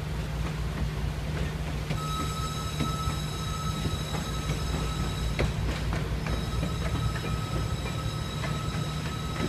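Heritage passenger coaches rolling slowly along the track with a steady low rumble and scattered clicks from the wheels. A thin, high wheel squeal starts about two seconds in, drops out briefly about halfway through, then returns.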